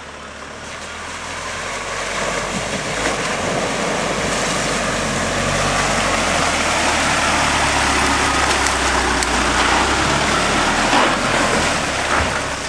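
Nissan D22 Navara ute driving through a muddy waterhole: its engine running under the rush and splash of water pushed aside by the tyres. The sound grows louder over the first couple of seconds as the ute comes close and passes by.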